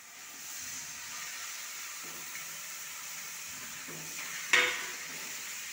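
Fried okra and potato pieces sizzling in a kadhai of hot oily masala as they are stirred in with a metal ladle, a steady frying hiss. About four and a half seconds in, the ladle strikes the pan once with a sharp clang.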